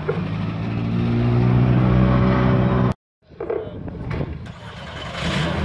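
Rally car engines at low speed: a Ford Focus rally car's engine running steadily close by, then, after a sudden cut about three seconds in, a Skoda Fabia rally car's engine pulling slowly away, getting louder near the end.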